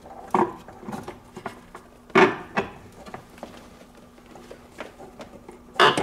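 The heater unit of a classic Mini being worked loose from under the dashboard: a series of separate knocks and clunks as it is pulled and shifted. The loudest come about two seconds in and just before the end.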